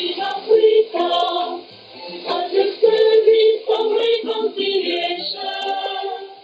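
Choral singing received as a shortwave AM radio broadcast, its sound thin and narrow with no high treble.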